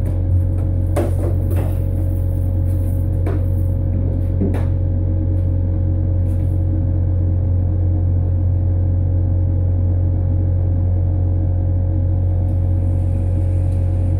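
PowerJack 15000 W split-phase inverter humming steadily while idling with almost no load. A few faint clicks come in the first five seconds.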